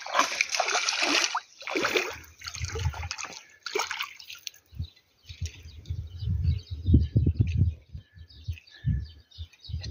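A hooked black bass splashing at the surface of the pond in a few short bursts during the first four seconds. Low, irregular rumbling buffets follow in the second half.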